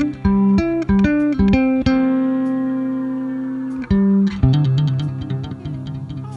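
Guitar playing a melodic line of single plucked notes, with one note held and fading for about two seconds in the middle of the phrase.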